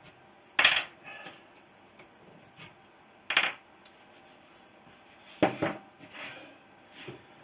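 Small metal locating pins being pulled out of a wooden rib-building jig with pliers: three sharp metallic clinks, about a second in, near the middle and a little before the end, with a few fainter taps between.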